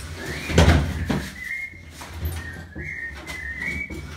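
A person whistling a tune in short, wavering notes, with a heavy knock about half a second in and a lighter one just after a second.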